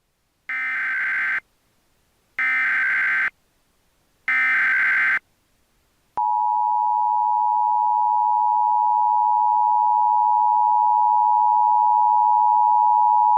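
Three short bursts of Emergency Alert System SAME header data, buzzy digital tones just under a second each. About a second after the last burst, the steady two-tone EAS attention signal (853 and 960 Hz) starts and holds. Together they mark the start of a new emergency alert.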